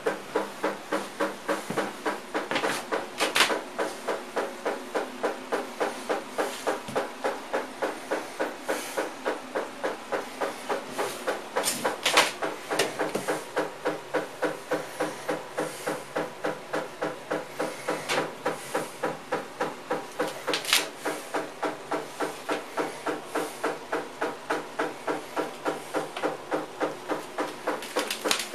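Machine running with an even beat of about three pulses a second, with a few sharp clicks or knocks on top.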